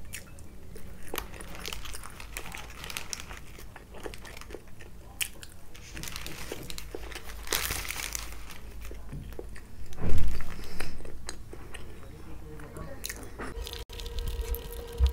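Close-miked eating: biting and chewing food, with a sandwich's paper wrapper crinkling as it is handled. A louder bump comes about two-thirds of the way through.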